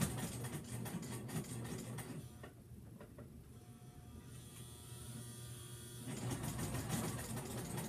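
Electric sewing machine stitching fabric onto a koozie: it runs fast with a rapid stitching rhythm for about two seconds, drops to a slower, quieter whine for a few seconds, then speeds up again about six seconds in.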